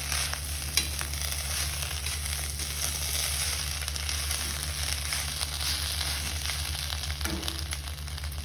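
Rice, fried chicken and Schezwan chutney sizzling steadily in a hot kadhai, with a few sharp clicks near the start, over a steady low hum.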